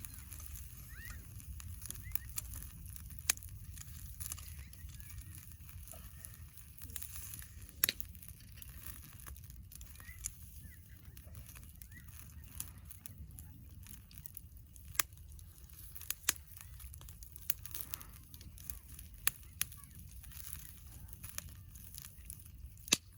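Wood campfire crackling, with irregular sharp pops a second or so apart over a low steady rumble.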